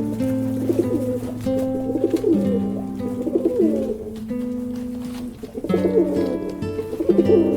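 Background music with held notes, over a bird's low, bending calls repeated several times.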